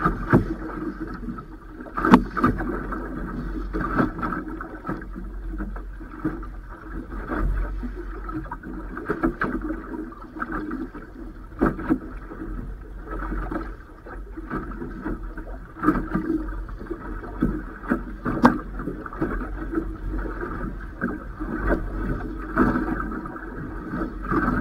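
Small waves slapping against the fiberglass hull of a boat sitting on choppy water, irregular knocks every second or two over a steady low rumble of wind on the microphone.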